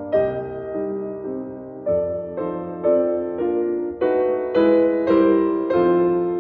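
Background piano music: slow, gentle notes and chords struck one after another, each one fading away.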